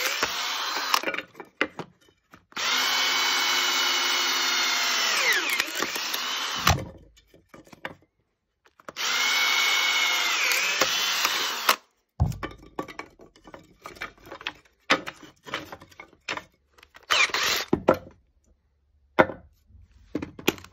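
Cordless drill spinning a cone-shaped screw log-splitter bit into thin wooden boards to split them. The motor whines in three runs, a brief one and then runs of about four and three seconds, and its pitch sags near the end of the longer runs. Scattered knocks and clatter fill the second half.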